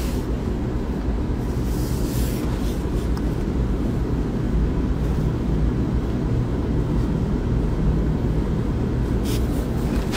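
Steady low rumble with a faint hum, like machinery running continuously, with brief soft rustling about two seconds in and near the end.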